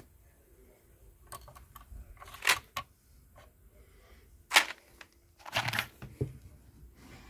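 Handling noises on a workbench: a handful of sharp clicks and knocks, the loudest about four and a half seconds in, with a short rustling clatter just before six seconds.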